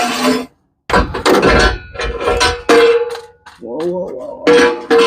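Metal parts clanking and banging against each other in a quick series of knocks, one of them ringing on briefly like struck steel about three seconds in.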